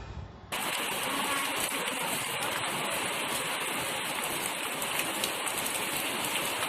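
Steady rain falling, a dense even hiss of drops on the ground and surfaces, cutting in abruptly about half a second in.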